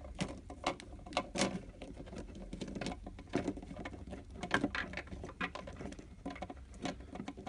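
Close handling noise of fingers pressing thin ink tubes into a small metal tube holder on an inkjet cartridge: irregular soft clicks, taps and scuffs of plastic and metal.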